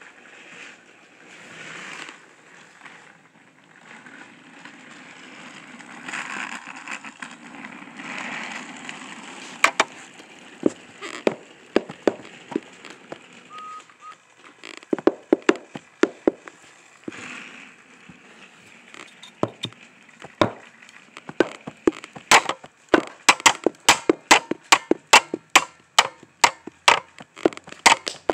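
Plastic toy trains and track being handled: a soft rustling at first, then sharp plastic clicks and knocks, scattered at first and coming about three a second over the last six seconds.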